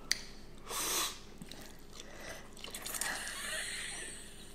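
Spicy instant noodles being slurped and chewed from chopsticks: a short slurp about a second in and a longer, hissy slurp about three seconds in.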